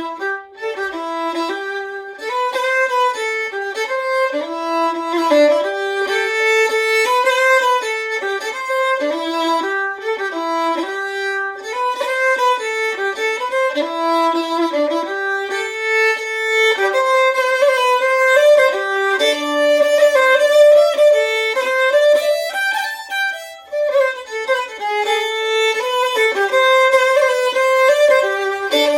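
Unaccompanied solo fiddle playing a lively Scottish tune in Cape Breton style, with quick ornamented notes and occasional double stops.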